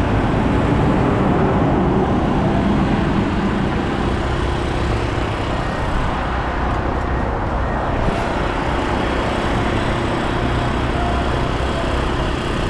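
Steady engine and road noise from heavy trucks, a mixer truck's diesel running among passing traffic. A faint steady hum joins in about four seconds in.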